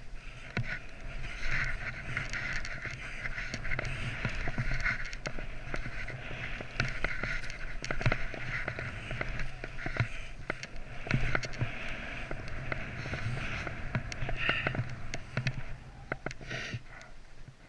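Skis running down through deep powder snow: a continuous rushing hiss with wind on the microphone and frequent sharp clicks and knocks, easing off near the end.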